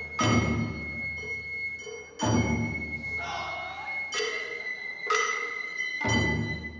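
Japanese festival hayashi: a shinobue bamboo flute holds a high note while drums strike at uneven intervals of one to two seconds, each stroke ringing out.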